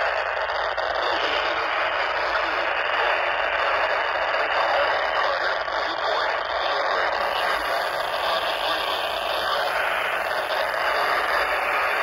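Steady static hiss from a Motorola handheld two-way radio's speaker.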